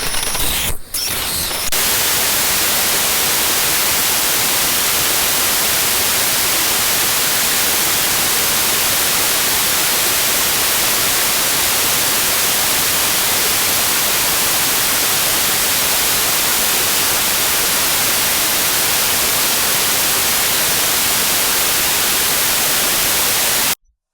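Static white noise: a steady, even hiss, loudest in the treble, running for about twenty seconds and cutting off suddenly near the end. A short, different sound with a brief dropout comes before it.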